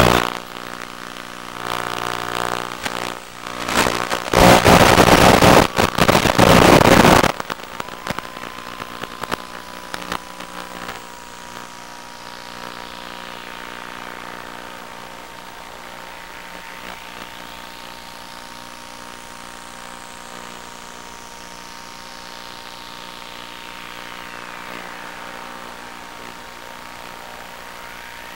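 Electric motor and propeller of an FPV radio-control plane under full power. About the first seven seconds are a loud, rough noise while it is in the tall grass; then it settles to a steady drone with a constant whine as it climbs away.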